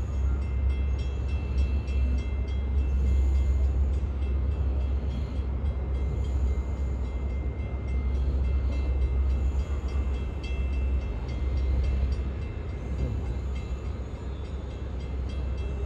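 A train running past with a steady low rumble and faint, evenly repeating clicks.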